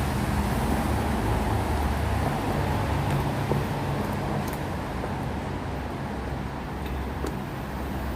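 Steady low rumble of a road vehicle or traffic running, with no clear changes.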